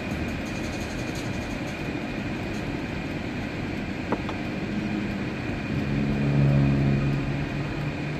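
Steady engine and road noise inside a moving car's cabin, with a low hum that swells a little about six seconds in.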